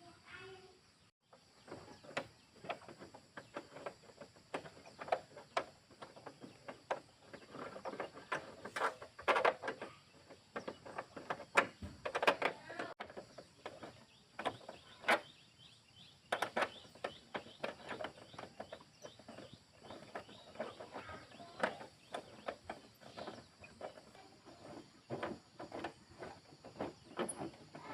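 Irregular clicks, taps and knocks, many in quick succession, of motorcycle parts and tools being handled.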